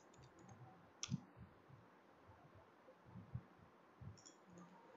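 Near silence: room tone, with one faint, sharp click about a second in and a few softer taps, the sound of computer keyboard and mouse use.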